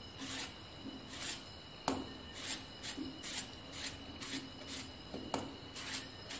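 Stone roller scraping and rubbing across a granite grinding slab, grinding a coarse coconut, chilli and dry-fish chammanthi by hand: repeated rasping strokes, about two a second, with two sharper clicks of stone on stone.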